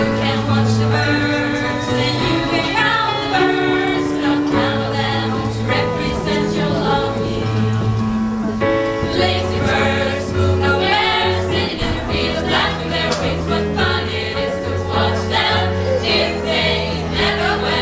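A choir singing in several parts over held low bass notes that move every second or two.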